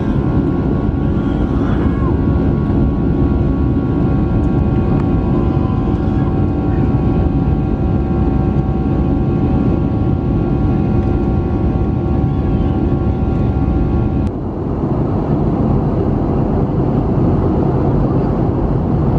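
Airbus A320's jet engines running, heard inside the cabin beside the wing: a loud, steady noise with several high, steady whining tones over it. About three-quarters of the way through it cuts abruptly to the same steady cabin noise without the whining tones.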